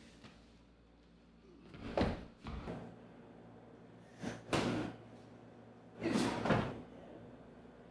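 Three pairs of quick thumps and swishes, about two seconds apart: the strikes, blocks and stamps of a two-person Hung Ga kung fu demonstration.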